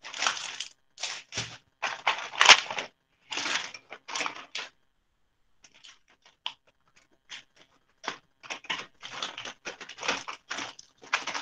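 Rustling and crinkling of craft materials being handled, in irregular bursts: a dense spell for the first few seconds, a brief pause, then many short crackles.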